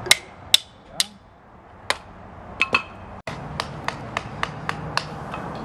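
Hatchet blows on wood at a stump chopping block, six sharp strikes with a short ring, splitting firewood. About three seconds in it cuts off abruptly, leaving a steady low hum with light ticks about four a second.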